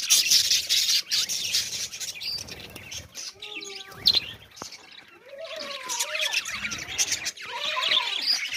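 A flock of budgerigars chirping and chattering together in a dense, continuous twitter, freshly fed. A few lower, wavering calls come through the chatter around the middle and again near the end.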